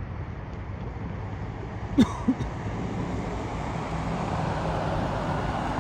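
Road traffic: a steady low engine hum, with the noise of a passing vehicle building up over the last few seconds. A short, sharp sound stands out about two seconds in, followed by a smaller one.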